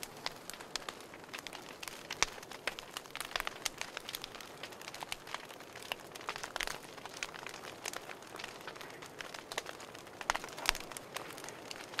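Wood campfire crackling, with frequent sharp pops at irregular intervals over a faint steady hiss of the flames; a couple of louder pops come near the end.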